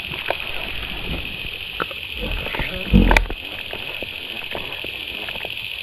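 Steady high-pitched buzzing drone of a tropical insect chorus, with scattered knocks and a louder thump about three seconds in.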